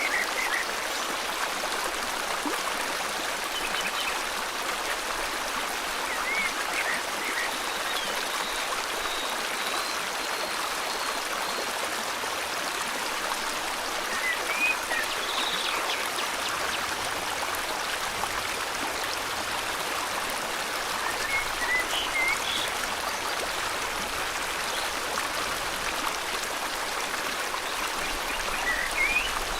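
Steady rushing flow of river water, with short bird chirps breaking in every few seconds.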